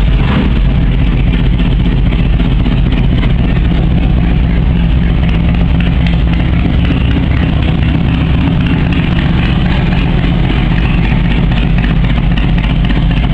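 Harley-Davidson FXDX Dyna Super Glide Sport's air-cooled Twin Cam 88 V-twin idling steadily through Thunder Header exhaust pipes, loud and even.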